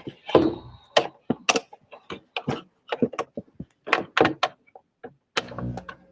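Irregular clicks and knocks of a laptop's power plug and cord being handled and plugged in, about a dozen sharp taps over several seconds, with a brief low hum near the end.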